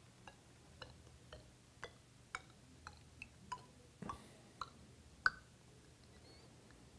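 Water dripping from a small dropper bottle into glass test tubes: faint, short pitched plinks about two a second, with a louder one about five seconds in.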